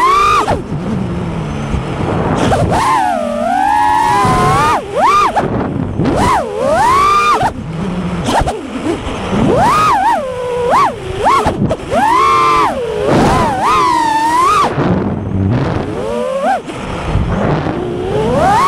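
FPV quadcopter's brushless motors whining through the onboard camera, the pitch swooping up and down sharply as the throttle is punched and chopped during fast flight.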